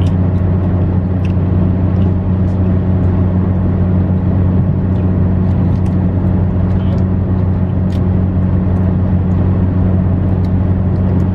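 Steady low drone of a car on the move, engine and road noise heard inside the cabin, with a few faint ticks over it.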